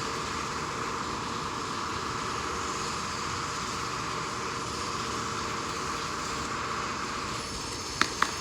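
Steady, continuous jackhammer din that eases slightly near the end, followed by a few sharp clicks.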